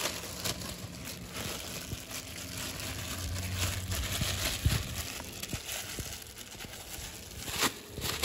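Thin clear plastic bag crinkling and rustling as it is shaken and handled, with seasoned chicken pieces shifting inside, to mix the marinade.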